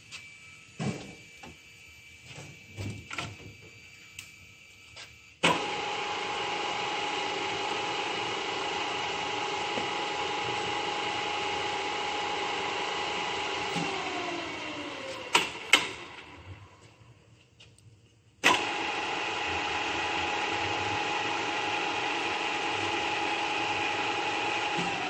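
A Giddings & Lewis radial drill's 5 hp motor and spindle drive is switched on with a sudden start and runs with a steady whine. It is switched off and winds down, falling in pitch, with two sharp clicks. A few seconds later it is started again, runs steadily, and begins to wind down at the end. Before the first start there are a few clicks and knocks from the controls.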